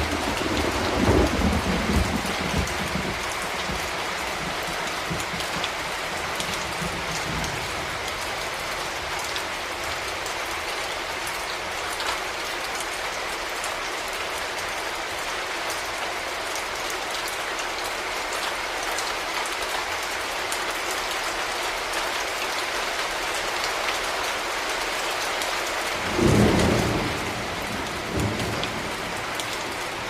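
Steady rain falling, with low rolls of thunder: one fading out over the first couple of seconds and another about four seconds before the end.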